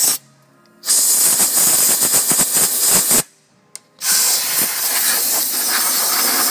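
Compressed air blowing out rocks and debris from the engine-mount seat and stud threads, a loud hiss in blasts. One blast ends right at the start, then two longer blasts follow with a short pause of about a second between them.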